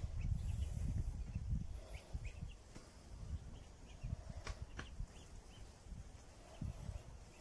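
Young Muscovy ducks giving scattered short, high peeps, with a few sharp clicks. A low rumble on the microphone dominates the first second and a half.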